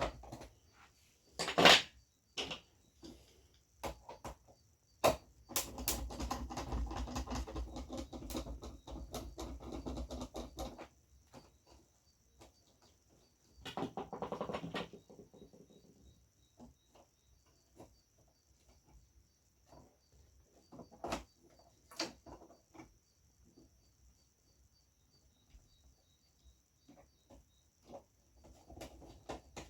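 Handling noise from reassembling a flat-screen TV: scattered sharp clicks, taps and knocks of screws, tools and plastic parts, with longer stretches of scraping and rubbing about six seconds in and again around fourteen seconds.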